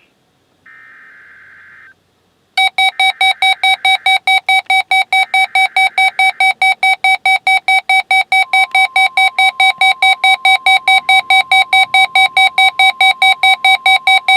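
NOAA Weather Radio required weekly test: three short buzzy SAME digital header bursts, overlapped from about two and a half seconds in by a weather alert receiver's loud alarm beeping about four times a second. About eight seconds in, the steady National Weather Service warning alarm tone comes in under the beeping.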